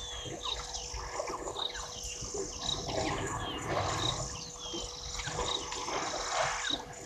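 African elephant herd drinking at the water's edge: low rumbles and water sloshing, which swell around the middle and near the end. Birds call over it, a short high note about once a second and several falling whistles.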